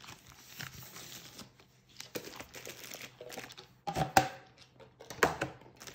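Clear plastic wrap and a paper sheet around a rolled diamond-painting canvas crinkling and rustling as it is handled, with a few sharper crackles about four and five seconds in.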